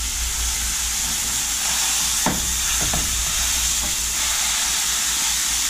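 Ground beef sizzling steadily as it fries in a small saucepan, with a spatula breaking it up and giving a couple of short knocks against the pan about two and three seconds in.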